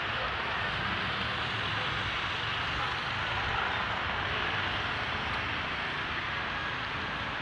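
Steady street traffic noise from motorbikes and cars on a busy town road.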